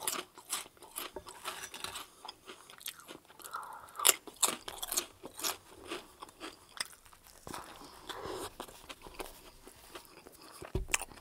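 Close-miked chewing of a potato chip with a bite of chopped deli sub: a run of crisp crunches that thins to softer, wetter chewing in the second half.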